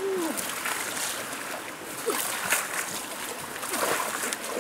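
Hands splashing and scooping in a shallow, muddy water-filled hole, with a few sharp splashes, over the steady rush of a flowing river.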